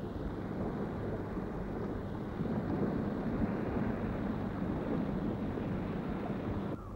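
Steady low rumbling ambient noise, without any distinct events, that drops off abruptly near the end.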